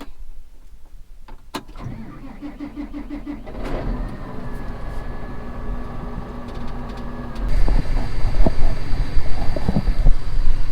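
A vehicle engine cranks with a quick pulsing about two seconds in, catches and runs steadily, and grows louder about seven and a half seconds in.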